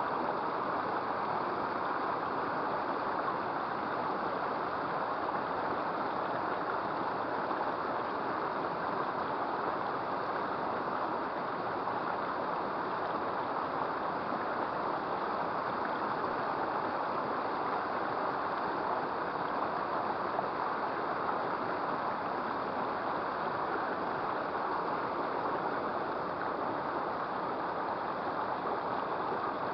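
Steady, even rushing of a small river's flowing water.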